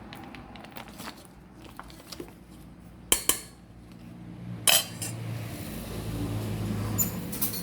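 Cooking utensils and a pot clinking, light knocks at first and then three sharper metallic clinks that ring briefly.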